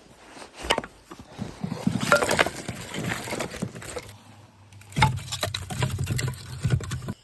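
Dry birch firewood being split into smaller pieces: a sharp chopping strike a little under a second in and another about five seconds in, each followed by a clatter of wood.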